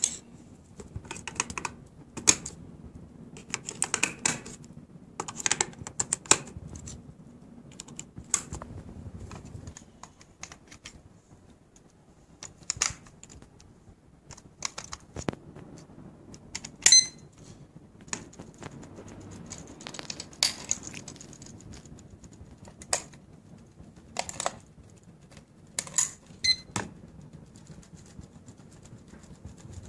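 Irregular clicks and knocks of hands handling a battery-powered wall clock and its small plastic parts, the loudest a sharp click with a brief ring a little past halfway.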